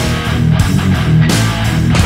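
Outro music: loud rock track with distorted electric guitar and bass.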